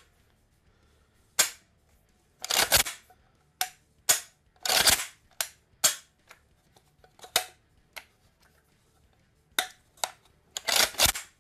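Function check of a freshly reassembled IO XB bullpup shotgun's AK-style action: about a dozen sharp metallic clacks and clicks spread irregularly over several seconds as the action is cycled and the trigger snapped, a few of them longer clacks.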